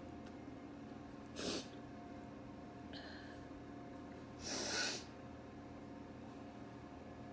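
A person sniffing twice through the nose: a brief sniff about a second and a half in and a longer one about four and a half seconds in.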